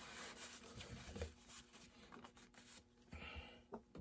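Faint rubbing of a cloth shop rag as greasy hands are wiped, with a few light handling knocks.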